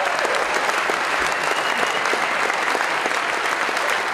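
A large audience applauding, with dense, steady clapping throughout.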